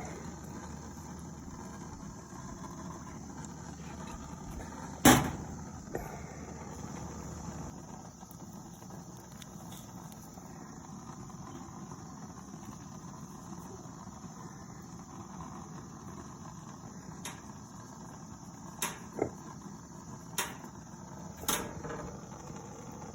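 Steady outdoor background of insects chirping over a low steady hiss, broken by one sharp knock about five seconds in and a few lighter clicks near the end.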